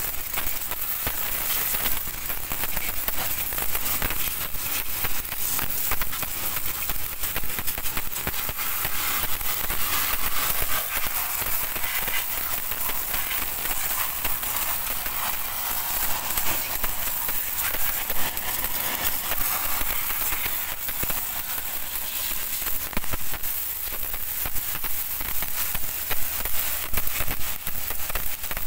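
Pressure washer jet spraying water onto a drum-brake hub and wet concrete: a steady hiss of spray with dense crackling spatter.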